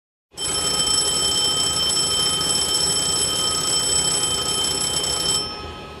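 Airliner cockpit engine-fire warning bell ringing continuously and loudly for about five seconds. It stops shortly before the end, leaving a brief fading tail.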